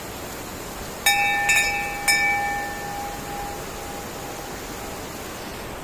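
Steady rush of a waterfall, with three ringing, bell-like metallic strikes about a second in, each half a second or so apart, their tone dying away over the next two seconds.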